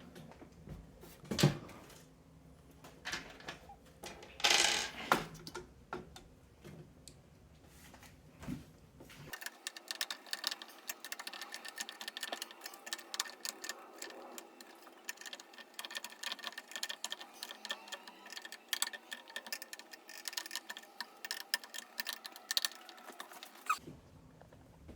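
Small clicks, taps and rattles of hands working the plastic and metal parts of a tower CPU cooler and its fan clips. There are a few sharper knocks in the first several seconds. About nine seconds in, a denser run of rapid light clicking starts and stops about a second before the end.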